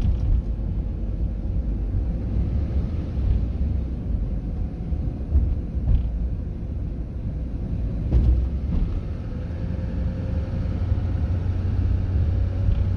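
Car driving along a city street: a steady low rumble of road and engine noise, with a brief thump about eight seconds in and a faint tone rising in pitch in the second half.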